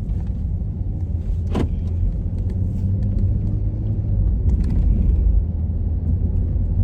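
Low, steady road and engine rumble inside a moving car's cabin, with one sharp click about a second and a half in.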